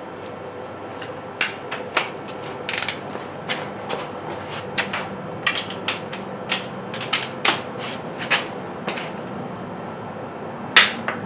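Sharp metallic clicks and clinks of a wrench with a long extension working the cylinder head bolts of a Chevy 350 small-block V8, irregular, a few a second, with a louder clink near the end.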